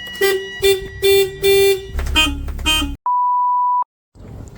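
A run of short, horn-like toots on one note, then a few lower toots, followed by a single pure, steady beep just under a second long, cut in with dead silence either side.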